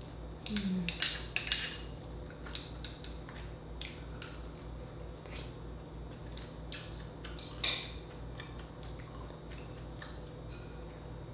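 Close-miked eating sounds: chewing, lip smacks and small wet clicks as rice and garlic butter clam are eaten by hand. They come as scattered short clicks, a louder cluster about a second in and another near eight seconds, over a steady low hum.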